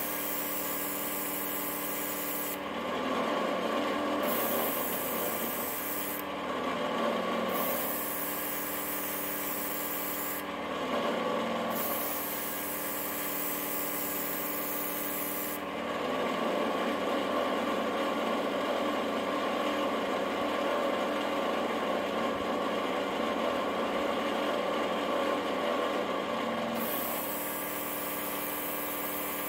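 Small airbrush compressor from a nail-salon airbrush kit running steadily with a pitched hum. An airy hiss from the airbrush stops and starts several times, including one stretch of about ten seconds with no hiss.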